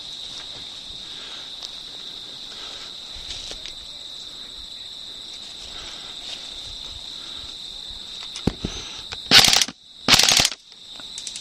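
Crickets chirring with a steady high-pitched drone. A few low thumps come near the end, followed by two loud bursts of hissing noise about half a second each.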